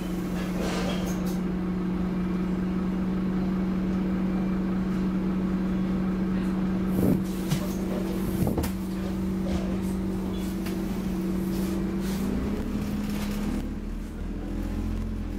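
Scania OmniCity double-decker bus under way, heard from the upper deck: the diesel engine and drivetrain give a steady hum, with a couple of short knocks from the body about halfway through. The hum fades near the end as the bus slows.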